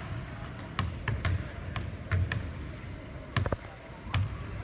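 Irregular sharp knocks, each with a dull thud, on a hard floor, about eight in all, echoing in a large hall.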